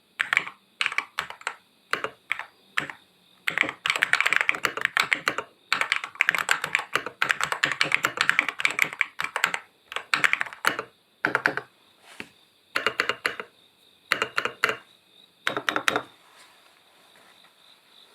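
Aula AG60 Pro Hall effect keyboard (aluminium case, carbon fibre plate) being typed on. The key presses come in short clusters, then as fast steady typing from about three and a half to eleven seconds in, then a few more short bursts that stop near the end.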